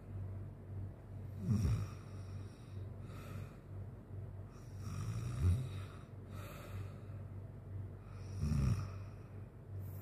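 A sleeping man snoring: three deep snores about three and a half seconds apart, over a steady low hum.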